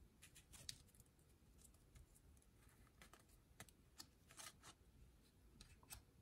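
Faint, irregular soft clicks and rustles of glossy trading cards being slid and flipped through by hand, several small ticks a second.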